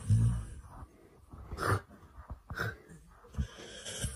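A dog breathing noisily through its nose and loose lips, in several short snorting puffs about a second apart.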